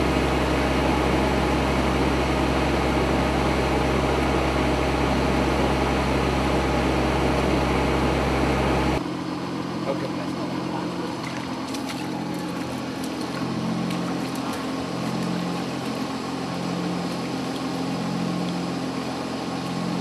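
A fire-service pump's engine running steadily, pumping out floodwater. About halfway through it drops suddenly to a quieter hum with a slow, regular throb.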